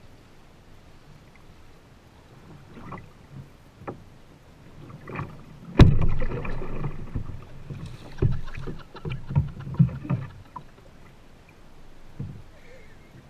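Paddling a kayak: splashes and knocks, with a sharp loud knock about six seconds in followed by a cluster of smaller knocks for several seconds.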